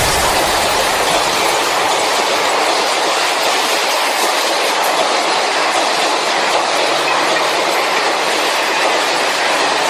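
A steady, loud rushing hiss with no tone or clear rhythm, sitting mostly in the middle and high range with little bass, and unchanged throughout.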